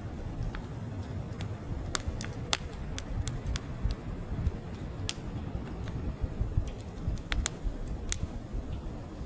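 Split firewood logs burning: irregular sharp crackles and pops over a low, steady rumble of flames, with small clusters of crackles about two seconds in and again around seven seconds.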